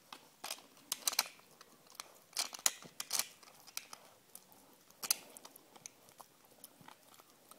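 Small dog gnawing a hard chew, teeth crunching and clicking on it in irregular bursts, with the sharpest crunches about a second in, around two and a half to three seconds in, and about five seconds in.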